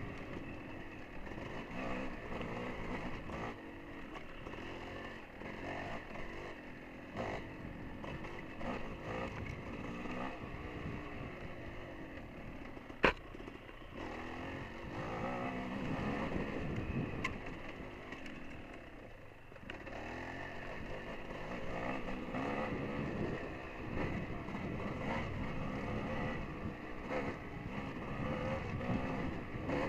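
Dirt bike engine running along a trail, its revs rising and falling with the throttle. One sharp knock stands out about 13 seconds in.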